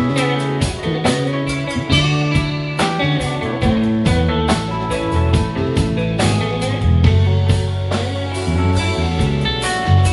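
Live rock band playing: electric guitars over bass guitar, drum kit and keyboard, with a steady drum beat.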